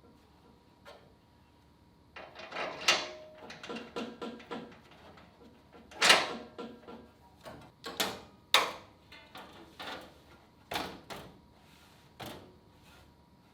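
Irregular knocks, clanks and scrapes of metal car body panels being handled and adjusted, with the sharpest strikes in the middle.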